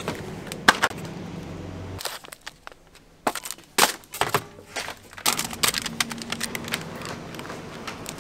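Plastic-wrapped grocery packs being handled and put in a plastic shopping basket: scattered sharp crinkles and clicks, with a faint steady hum from about halfway.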